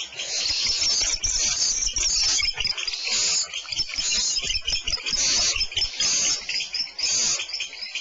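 Barn owl giving repeated rasping hisses, in bursts about once a second, with soft knocks from the bird shifting in the nest cavity.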